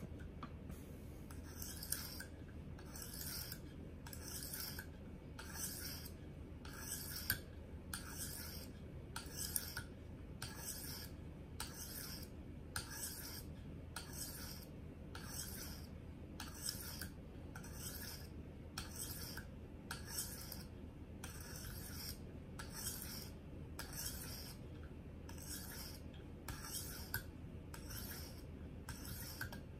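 A 300-grit diamond stone on a KME guided-rod sharpener rasping along the edge of a Henckels paring knife in a steady rhythm of even strokes, more than one a second. This is the coarse stage on a dull edge, working to raise a burr along the blade.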